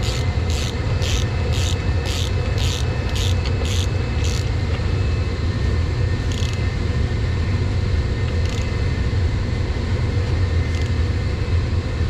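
Socket ratchet clicking in quick back-and-forth strokes, about two or three a second for the first four seconds, then a few single strokes further apart, tightening pump flange bolts. A steady low rumble runs underneath.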